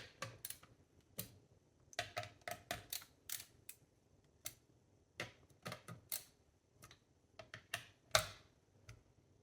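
CPU cooler mounting-bracket screws being tightened one after another in a star pattern: a run of small, irregular metal clicks and ticks, the loudest about eight seconds in.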